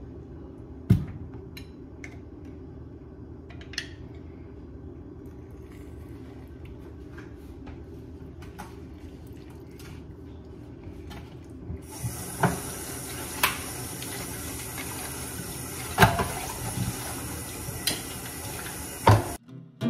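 A hand-held citrus press squeezing limes, with a few light clicks. About twelve seconds in, a kitchen tap starts running into a stainless steel sink as the press and a utensil are rinsed, with several sharp knocks against the sink. The water cuts off just before the end.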